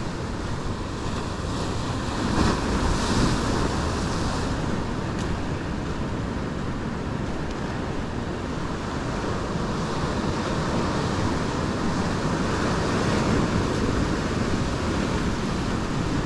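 Ocean surf breaking and washing over shoreline rocks, a steady rush that swells a little as each wave comes in, with wind rumbling on the microphone.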